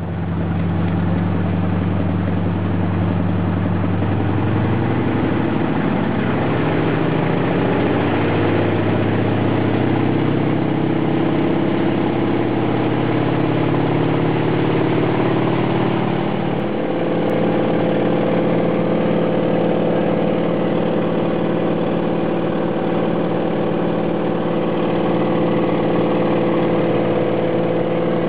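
DHC-3 Otter floatplane's engine and propeller running, heard from inside the cockpit. The engine note climbs a few seconds in and steps up again about two-thirds of the way through as power is added, then holds steady while the plane runs across the water.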